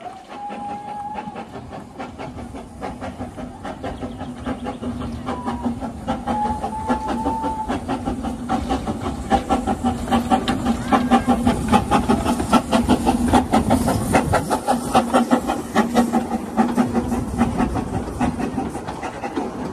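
Narrow-gauge steam locomotive 'Dolbadarn', a Hunslet 0-4-0 saddle tank, running in with its coaches. Steam hisses and the wheels click over the rail joints, growing louder as it draws near and passes.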